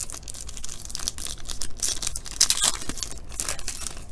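Foil trading-card pack being torn open by hand, its wrapper tearing and crinkling in several short bursts, loudest about two to two and a half seconds in.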